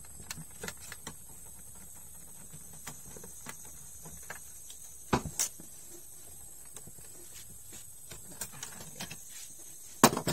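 Small clicks and taps of a screwdriver and hands working on the plastic chassis of a disassembled Epson L360 printer as a screw is taken out, with a sharp double click about five seconds in and a louder knock near the end.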